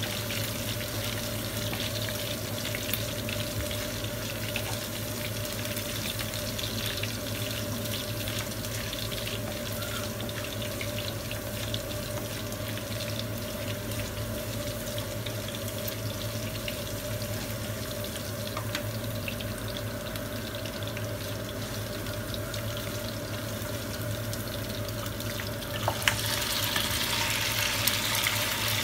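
Curry leaves and green chillies sizzling in hot mustard oil in a frying pan, being fried until crisp, with a steady hum underneath. Near the end the sizzle suddenly gets louder as boiled masala mutton is tipped into the hot oil.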